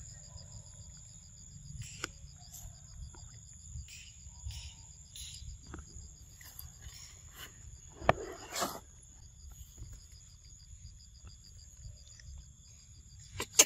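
Insects trilling without a break: a steady high whine together with a fast, even pulsing chirr. A few sharp clicks or knocks cut through, the loudest about eight seconds in, with a brief rustle after it, and another just before the end.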